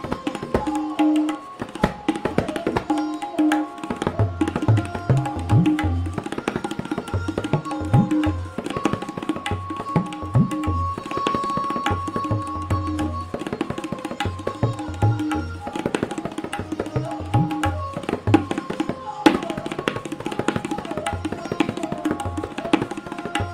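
Tabla solo in the Benares gharana style: rapid strokes on the treble drum over deep bass strokes on the bayan, several of which glide upward in pitch as the hand presses the drum head.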